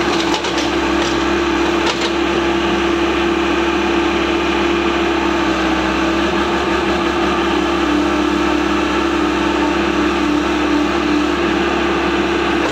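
Komatsu PC75UU-2 compact excavator's diesel engine running steadily with a constant drone as the machine works its arm and bucket in a sand pile. A few light clanks in the first couple of seconds.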